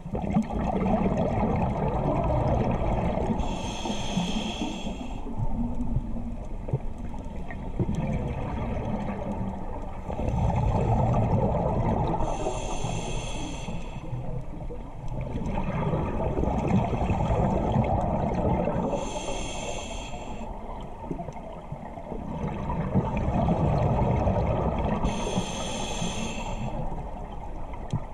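Scuba diver breathing through a regulator underwater. Four breath cycles about every six to seven seconds, each with a short hiss as air is drawn through the demand valve and a long bubbling rush of exhaled air.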